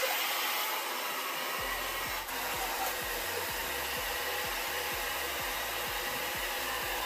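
Hand-held electric hair dryer running steadily, blowing on freshly washed hair. A low, uneven rumble joins the steady rush of air about a second and a half in.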